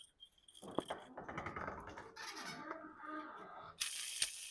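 Steel garage door track and roller hardware being worked with a pry tool: knocks and metal rattling, then a sudden loud, harsh metallic grating with sharp clicks near the end.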